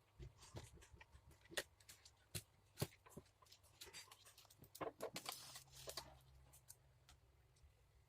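Faint, scattered clicks and taps of small parts and tools being handled during a phone repair, with a short rustling scrape about five seconds in.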